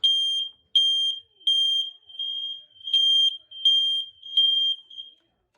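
Household smoke alarm sounding under test: seven shrill beeps of one high tone, about three quarters of a second apart, the fourth a little weaker, stopping about five seconds in.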